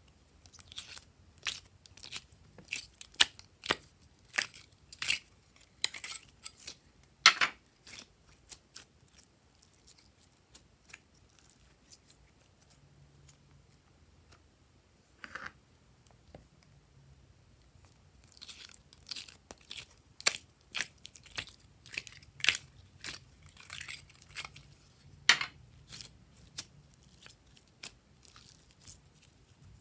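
Hands squishing and stretching glossy slime, giving runs of sharp, sticky crackles and pops. The crackling pauses for several seconds midway, broken by one louder crackle.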